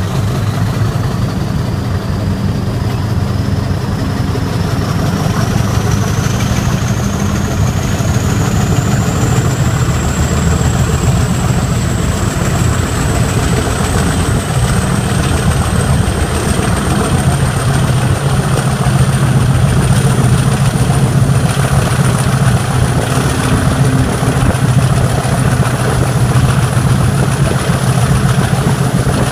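British Rail Class 50 diesel locomotive 50035's English Electric 16CSVT V16 engine working under power as it accelerates, heard close alongside the cab. A steady low engine note runs under a turbocharger whistle that climbs in pitch as the locomotive picks up speed.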